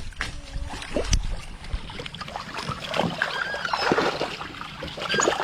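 Small boat working on water, with knocks and water noise. From about three seconds in come many short, high, sliding chirps.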